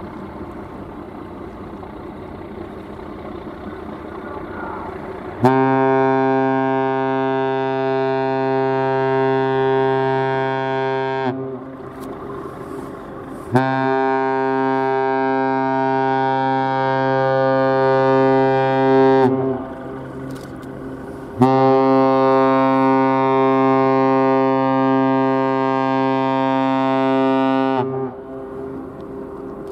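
Sail training ship Kaiwo Maru's steam whistle sounding three long blasts of about six seconds each, each dipping slightly in pitch as it cuts off. Three long blasts are the customary farewell signal of a ship leaving port. A low engine rumble continues between the blasts.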